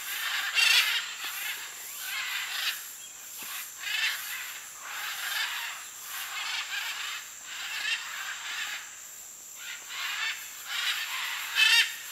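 A flock of macaws calling: harsh squawks, overlapping and repeating every second or so, with a short lull about nine seconds in. A steady high-pitched whine runs underneath.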